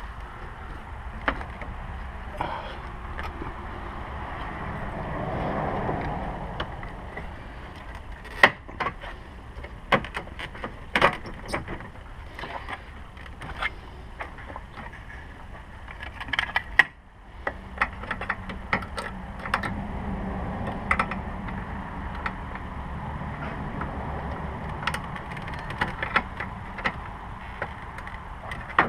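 Hand work on car parts: scattered sharp clicks and knocks of tools and plastic pieces being handled, over a steady low rumble.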